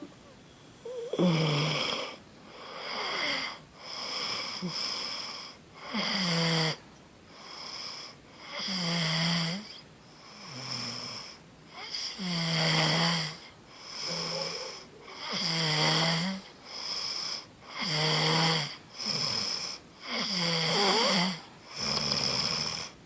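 A person snoring, one loud snore after another in an even rhythm, about one every one and a half seconds.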